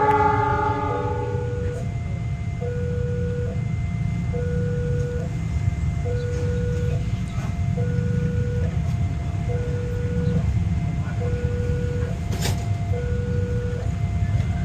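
Indonesian railroad crossing warning alarm sounding its electronic two-tone signal, alternating a lower and a higher note, each held about a second, over a steady low rumble. The alarm is the sign that a train is approaching and the crossing gate is closing or closed.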